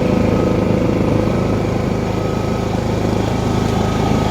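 Portable generator's engine running steadily at a constant speed, with an even, unchanging hum.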